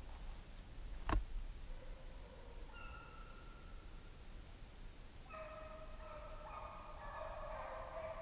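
Pack of hunting dogs giving tongue in the distance while running a fox: one held call near three seconds in, then several voices overlapping from about five seconds in. A single sharp knock about a second in.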